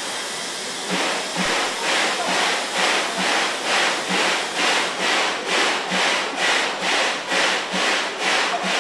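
JNR 8620-class steam locomotive hissing steam, then from about a second in a rhythmic chuffing of steam at an even pace of about two beats a second, not speeding up.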